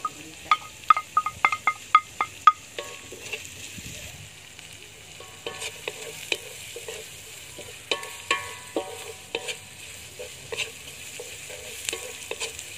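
Sliced onion, garlic, chilli and anchovies sizzling in oil in an aluminium wok, stirred and scraped with a wooden spatula. In the first two and a half seconds, a quick run of sharp, ringing taps as the chillies are knocked off a ceramic plate into the wok.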